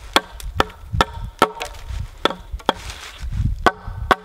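Vintage Norlund hatchet chopping branch stubs off an upright sapling pole: about nine sharp knocks, roughly two a second, each briefly ringing, with a short pause about three seconds in.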